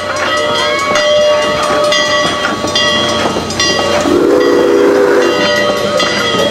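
Narrow-gauge steam locomotive No. 464 passing a grade crossing and sounding its chime whistle, one chord-like blast of a little over a second starting about four seconds in. Under it runs a continuous mix of ringing, pitched tones.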